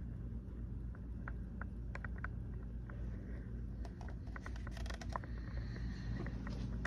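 Steady low hum with scattered light clicks and taps, and a quick cluster of clicks about five seconds in.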